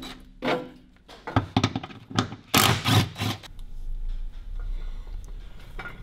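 DeWalt cordless driver run in several short bursts, loosening the bolts of the transmission's rear support mount. The loudest burst comes about halfway through, followed by a low steady hum.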